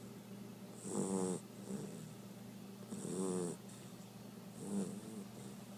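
Two-month-old blue Great Dane puppy snoring in its sleep: three short snores about two seconds apart, the last one shorter.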